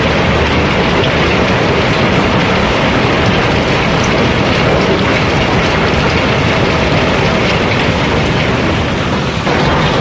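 River cobblestones flowing out of a barge hold through an opening in its floor: a loud, continuous rattle and clatter of rock on rock.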